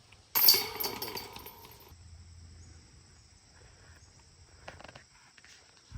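Disc golf basket chains jingling as the discs are pulled out after a putt, starting suddenly with a loud metallic rattle that fades over about a second and a half, followed by faint footsteps.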